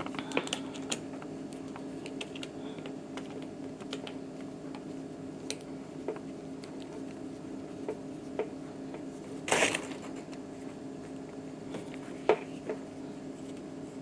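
Hand-threading a refrigerator water line fitting onto the water inlet at the back of the refrigerator: scattered light clicks and scrapes, a louder scrape about halfway through and a sharp click a couple of seconds later, over a steady low hum.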